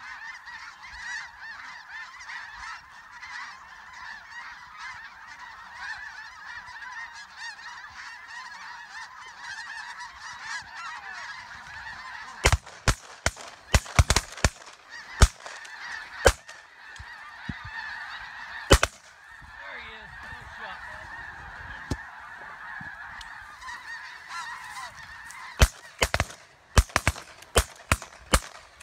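A large flock of snow geese calling overhead in a dense, unbroken chorus of honks. About halfway through, a quick volley of shotgun shots rings out, one more follows a couple of seconds later, and a second rapid volley comes near the end.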